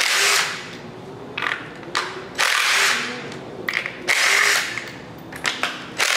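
A DeWalt cordless driver with a 10 mm deep-well socket spins out the bolts of an LS V8's coil pack bracket in short bursts of about half a second each, three main ones with lighter clicks of metal between them.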